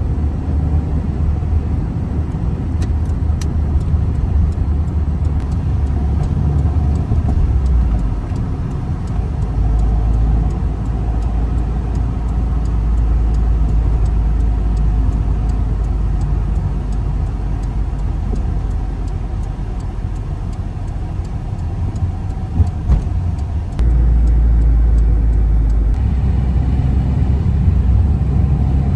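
Road and engine noise inside a moving car: a steady low rumble that shifts abruptly in level a couple of times.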